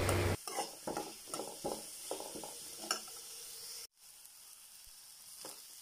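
Steel ladle scraping and stirring onions, green chilli and curry leaves frying in oil in a metal kadai, with a light sizzle. The scraping strokes come irregularly for the first three seconds, then only a faint frying hiss is left.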